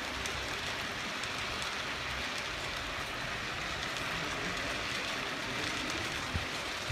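Model Flying Scotsman 4472 train with powered tender drive rolling past on the layout's track: a steady rushing rattle of many small coach wheels on the rails, with a few light clicks.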